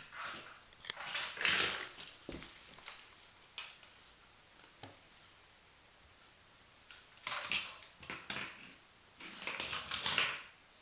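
Kitten playing with a toy on the floor: bursts of rustling and scrabbling with light clicks. The loudest come about a second and a half in and again near the end.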